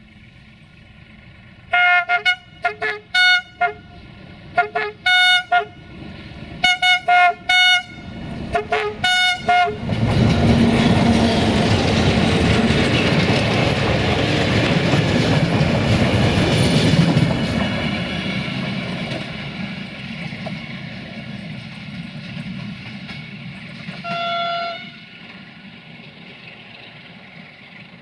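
Romanian CFR class 060-DA (LDE2100) Sulzer diesel-electric locomotive sounding its horn in a long rhythmic run of short toots. About ten seconds in, the locomotive and its passenger carriages pass close by with loud engine and wheel-on-rail noise, which fades as the train moves away. One more short horn toot sounds a few seconds before the end.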